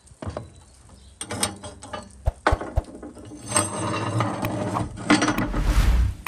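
Metal tongs scraping and clanking against the concentric iron rings of a wood-fired stove top as the rings are lifted off to open the firebox: a run of clanks and scrapes, busiest and loudest in the second half.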